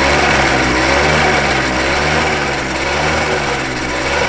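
TVS Champ moped's small two-stroke engine running steadily, its speed wavering slightly up and down, after its carburetor was cleaned and fixed to cure a no-start.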